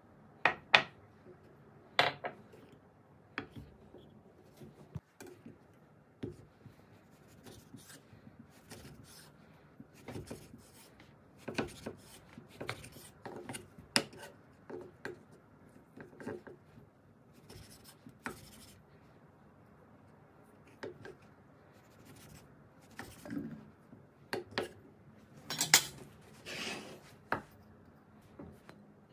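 Kitchen handling sounds in scattered taps and knocks: plates and dishes clinking as they are set down, a knife cutting pork on a wooden cutting board, and a stainless steel bowl knocking and clinking, loudest in a cluster near the end.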